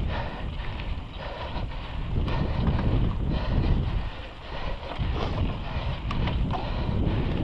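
Wind buffeting the camera's microphone over the rumble of a mountain bike's tyres rolling fast down a rocky dirt singletrack, with a few sharp clicks from the bike.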